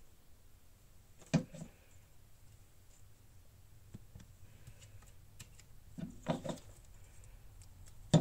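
Hands handling a glue stick and paper pieces on an open journal: a few sharp taps and knocks against the page and table, one about a second and a half in, a cluster around six seconds and the loudest near the end, with faint paper rubbing in between.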